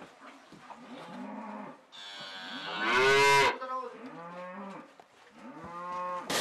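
Calves mooing: a run of four or five separate short calls, the loudest and highest-pitched about three seconds in.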